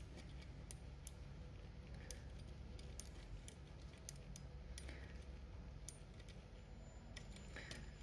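Faint, irregular metallic clicks of a combination padlock's number wheels being turned by thumb while a strip of shim steel rides against the wheel axle, feeling for the notch, over a low steady hum.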